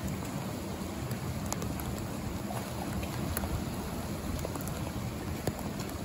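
Steady rush of flowing river water, with an unsteady low rumble underneath and a few faint scattered ticks.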